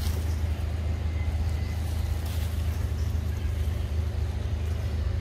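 A steady low motor hum, unchanging throughout.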